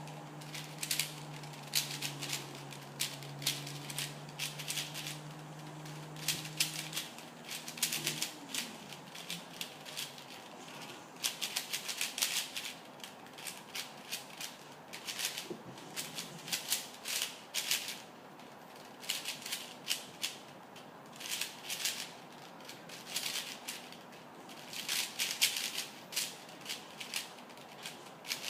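4x4 speedcube being turned fast by hand: rapid runs of plastic clicking and clacking in bursts of a second or two, broken by short pauses. A low steady hum runs under the first eight seconds and dies away with a falling pitch.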